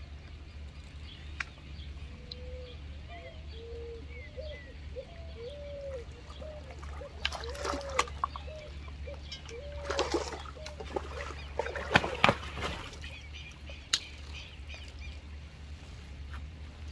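A hooked fish splashing at the pond surface several times while it is reeled in and netted, the splashes coming in short clusters, the loudest after the middle. Through the first half a short rising-and-falling tone repeats about twice a second.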